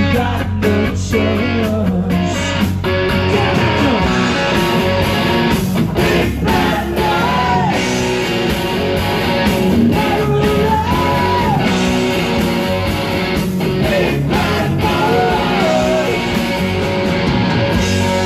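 Live rock band playing loud, with electric guitar, drums and singing.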